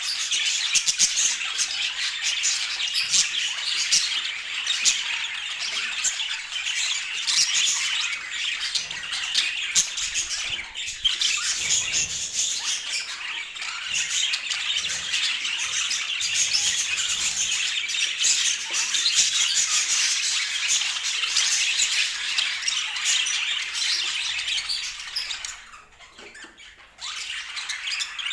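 Budgerigars chattering and chirping continuously, a dense overlapping flock chatter, with a brief lull near the end.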